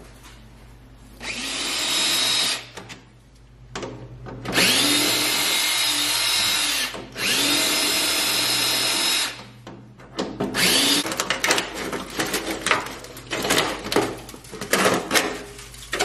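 Cordless drill running in three long bursts, its motor whine rising in pitch as it spins up each time, then a string of quick short trigger bursts over the last few seconds.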